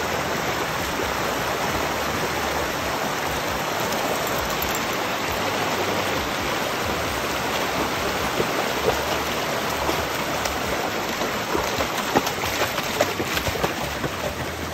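Fast, shallow stream rushing over rocks. A dog splashes through the water, with sharp splashes coming mostly in the second half.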